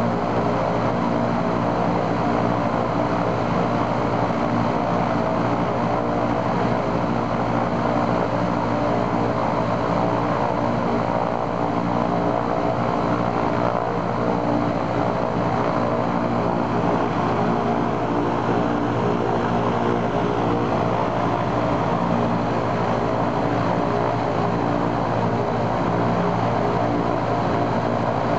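Ilyushin Il-14's right-hand Shvetsov ASh-82T 14-cylinder radial engine and propeller running steadily on a ground run. The run is a check after the engine's oil cooler was replaced.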